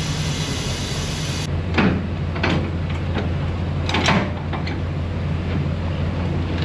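A few sharp metallic clanks from hardware under a semi-trailer being worked by hand, over a steady low hum of an idling truck.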